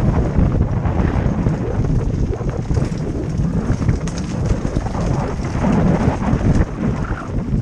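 Mountain bike rolling fast downhill over a rocky dirt trail: tyres crunching and the bike's frame and chain rattling over the bumps. Wind buffets the helmet-mounted microphone throughout.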